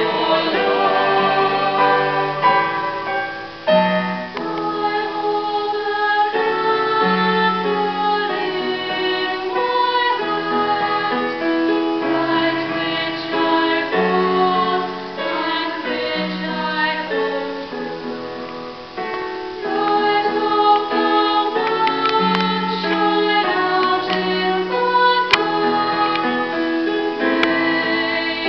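Small choir of women and children singing in parts, moving from one held chord to the next.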